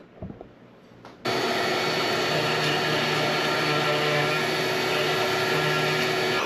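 Electric power tool switching on abruptly about a second in and running steadily at full speed, trimming a piece of wood stud.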